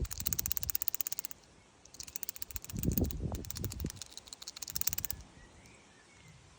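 High-pressure fuel pump on an Alfa Romeo 1.8 TBi engine ticking fast and evenly, about fifteen ticks a second, with irregular low thuds underneath. It breaks off for a moment just after a second in and stops about five seconds in.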